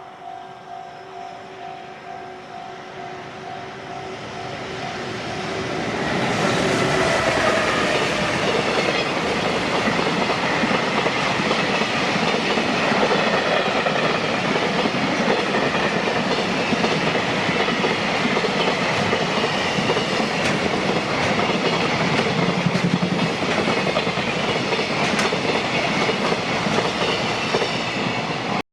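A Japanese level-crossing warning bell rings in a steady repeating clang. About six seconds in, a JR Freight train rushes through the crossing at speed, and the long run of wagons rattles and clacks over the rail joints until the end, drowning out the bell.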